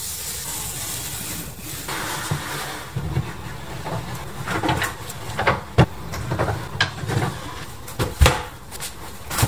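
Knocks, clunks and scrapes of furniture being handled: a wooden dresser drawer worked and a rattan chair shifted. They start about two seconds in and come thicker from about halfway.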